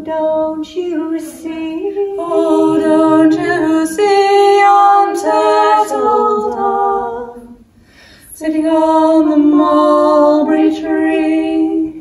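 Two women's voices singing together unaccompanied in long held notes, with a short break about seven and a half seconds in before they come back in.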